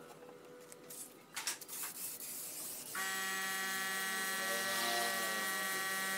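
Paint spray gun switched on about three seconds in, with a steady buzz as it sprays the wooden door. A few faint knocks come before it.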